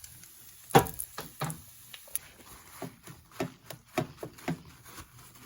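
Light taps and knocks of bacon being dabbed with paper towel on a hard kitchen surface. One louder knock comes about a second in, then quicker taps about three a second.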